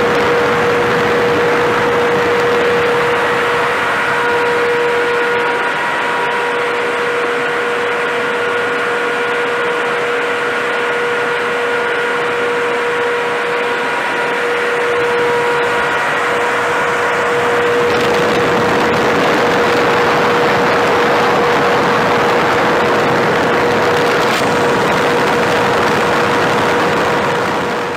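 Axial mine ventilation fan running at full speed and drawing wet, dusty air: a loud rush of air with a steady whine on top. The rush grows fuller about two-thirds of the way through.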